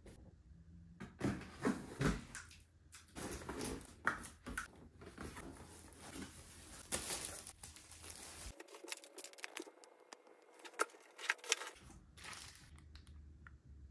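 Cardboard shipping box being handled and opened by hand: flaps scraping and knocking, with rustling of packaging and scattered sharp clicks.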